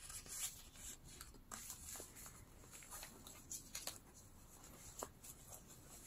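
Faint rustling and a few light ticks of paper being handled: a small card slid against the stiff aged-paper pages and pocket of a handmade junk journal.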